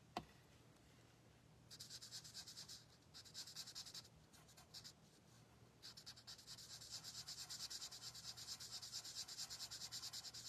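Faint marker nib scribbling on card stock as a small piece is coloured in: quick back-and-forth strokes, several a second, in short spells and then a longer run in the second half. A single sharp click comes right at the start.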